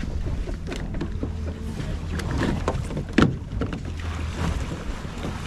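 Charter boat's engine idling with a steady low rumble, with scattered clicks and knocks over it, the loudest a sharp knock about three seconds in.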